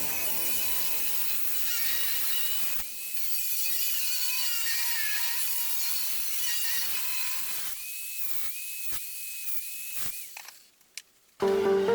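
A small power tool's motor running with a steady high whine and hiss. It cuts out briefly several times near the end, then stops.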